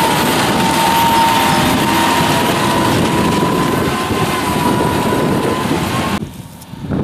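John Deere 6140R tractor's diesel engine working hard under load while pulling a five-furrow Kverneland plough through heavy wet soil, a steady high whine running over the engine noise. The sound drops away abruptly about six seconds in.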